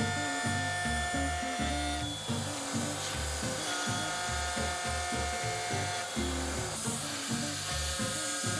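Background music with a rhythmic, stepping bass line and held chords.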